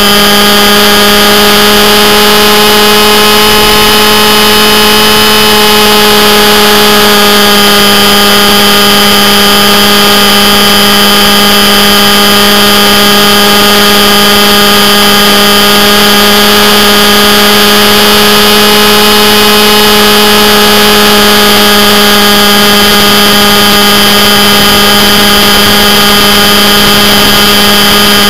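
Radio-controlled scale Hughes 500E model helicopter's motor and rotors running at a steady pitch while it hovers, heard very loud from a camera mounted on the helicopter itself.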